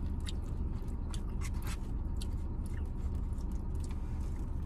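Close-up eating sounds: chewing with scattered small clicks, crackles and scrapes of food being picked from a takeout bowl, over a steady low hum.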